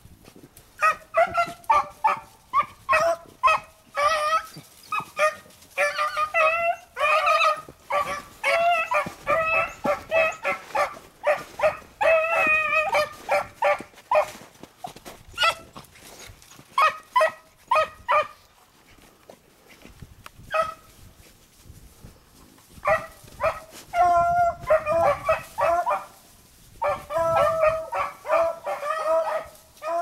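Beagles baying while running a rabbit's scent trail in snow: rapid short bays coming in runs, with a few brief pauses.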